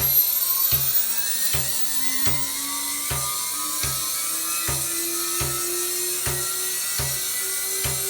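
Moore Model 3 jig grinder running: the high-speed grinding spindle gives a steady high whine and hiss, under which a lower hum slowly rises in pitch. A regular knock comes about every three-quarters of a second.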